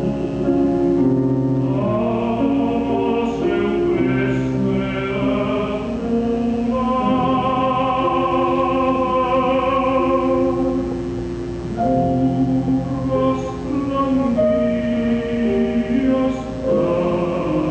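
A classical tenor singing an art song with long held notes and vibrato, over piano accompaniment.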